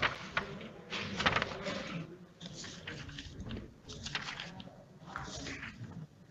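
Faint, indistinct voices with scattered short rustles and clicks in a quiet room.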